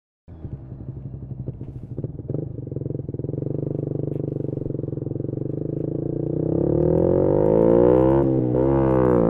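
Single-cylinder four-stroke engine of a 2018 Yamaha MT-125 with an aftermarket GPR exhaust, heard onboard, cutting in after a moment of silence and pulling up through the revs with its pitch climbing steadily. Near the end the revs dip briefly twice and pick up again.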